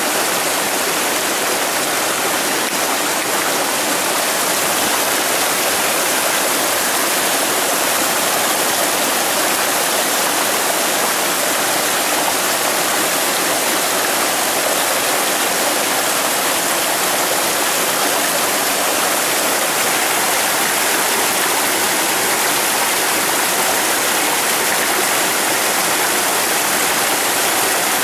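Steady rush of a jungle stream's water running over rocks, even and unbroken.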